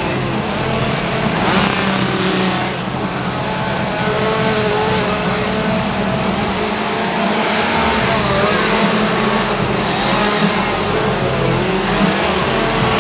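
Several chainsaws revving and idling close by, their engine pitch rising and falling over and over.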